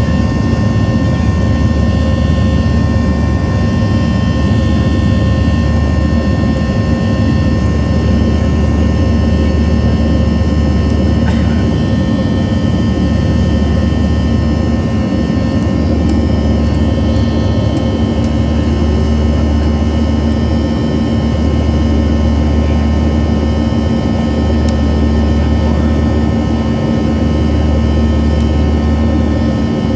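Boeing 737-700's CFM56-7 jet engines running steadily: a constant low rumble with several steady whining tones above it.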